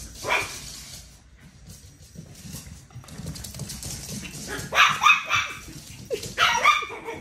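Small dogs barking at play: a short yelp just after the start, then two loud rounds of sharp barks, about five and six and a half seconds in.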